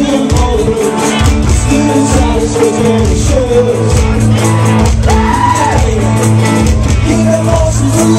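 Live rock band playing a song: a singer over a bass line, guitar and a steady drum beat.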